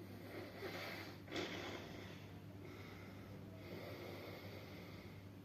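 A person breathing in and out in several long, hissing breaths, with one short, sharp breath a little over a second in.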